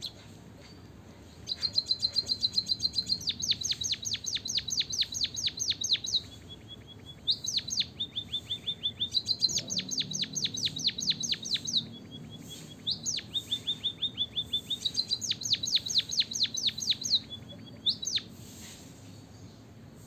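Emprit kaji munia singing three long bouts, each a short held high note running into a fast series of sharp clicking notes, about seven a second.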